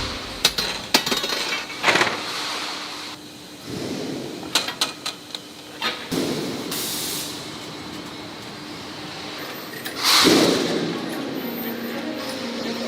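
Steel strip processing machinery running with a steady hum, broken by scattered metallic knocks and clinks, a short hiss, and one louder noisy surge about ten seconds in.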